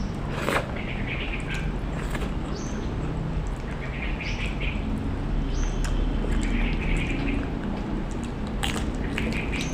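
A bird calling over and over, a short chirping phrase repeated every couple of seconds, over a steady low background rumble, with a few sharp clicks now and then.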